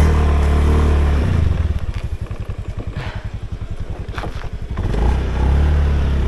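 Small motorcycle engine pulling away on a rough dirt track. It runs strongly for about the first second, drops to an even low-throttle pulsing, then opens up again about five seconds in.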